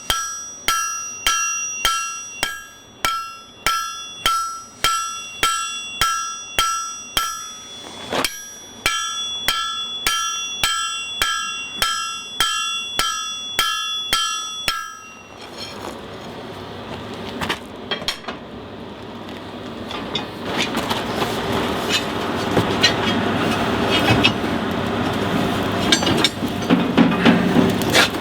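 Hand hammer striking steel on an anvil, about two blows a second, the anvil ringing after each blow, with a short break about eight seconds in. The hammering stops about fifteen seconds in, and a steady rushing noise with scattered clicks takes over and grows louder.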